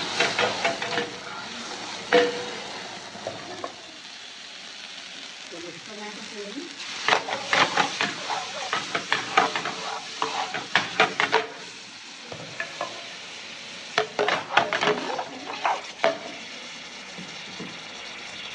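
Metal ladle scraping and knocking around a steel wok as the masala fries and sizzles over a high flame. The scraping comes in bursts of quick strokes, heaviest about seven to eleven seconds in and again around fifteen seconds, over a steady sizzle.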